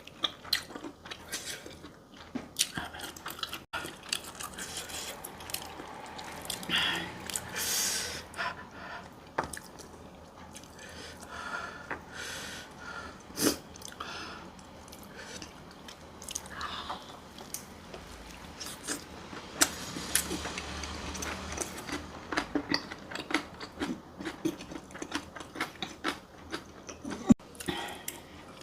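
A person chewing and biting food with irregular crunches, smacks and wet mouth clicks.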